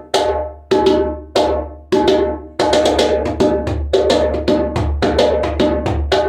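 Hand-played Burkina djembe with a calfskin head, ringing strokes struck one at a time about every two-thirds of a second, then from about two and a half seconds in a quicker steady rhythm of several strokes a second.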